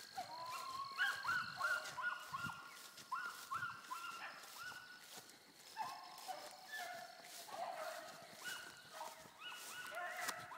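A pack of rabbit-hunting hounds baying on a rabbit's trail: several dogs' voices overlapping in repeated, drawn-out notes, faint throughout.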